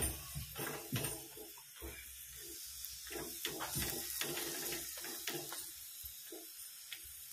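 Ghee sizzling steadily under a tilgul poli roasting on a hot iron tava, with short soft scrapes and taps as a flat spatula presses it against the pan.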